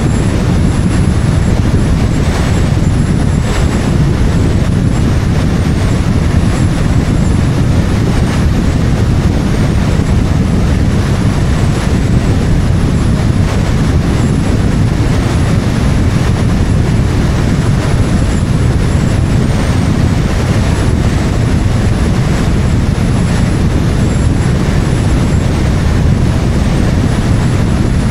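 Wind and road noise on an action camera mounted outside a moving car: a loud, steady low rumble of air buffeting the microphone, with tyre and road noise.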